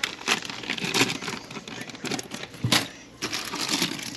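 Plastic packaging bag crinkling and rustling in irregular bursts as it is handled, with a sharper crackle about two-thirds of the way in.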